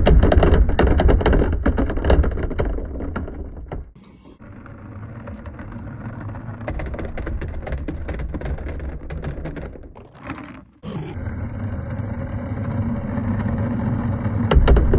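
Small balls rolling and clacking along a plastic rain-gutter track, a low rumble with many rapid clicks. The rumble is loudest at first and drops away at about four seconds; quieter rolling and clicking follows, breaking off briefly about ten seconds in.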